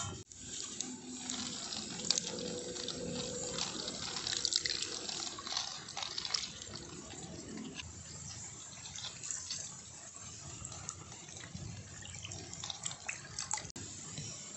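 Water splashing and sloshing as eggs are dipped into and lifted out of a clay pot of water by hand, with scattered small clicks and knocks.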